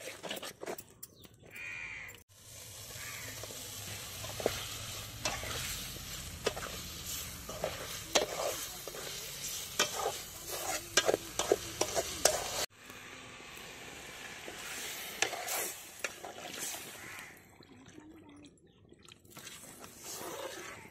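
Spice paste sizzling in a metal pan over a wood fire while a metal spatula stirs and scrapes it, with many short scraping clicks. About thirteen seconds in the sound changes to quieter, occasional stirring of the watery curry.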